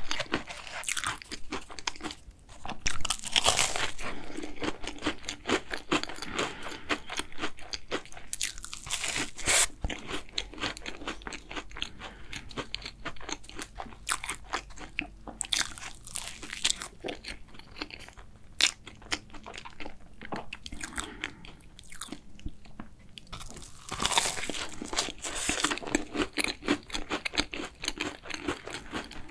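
Close-miked chewing of chocolate cookie choux, the crisp cookie crust crunching in the mouth, with louder stretches of crunching about three seconds in and again near the end.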